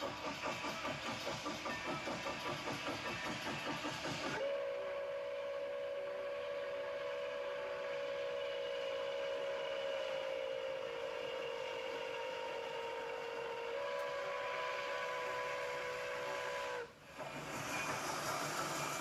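Milwaukee Road 261, a 4-8-4 steam locomotive, working hard with its exhaust chuffing at about four beats a second, then sounding one long steady blast on its steam whistle that lasts about twelve seconds and steps slightly near the end. After a brief break, the rumbling noise of the train going by.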